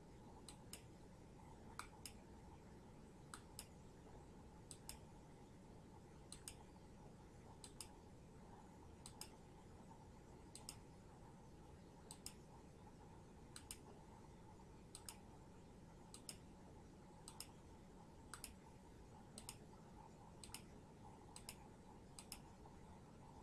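Faint computer mouse clicks, mostly in quick pairs about every second and a half, over near silence.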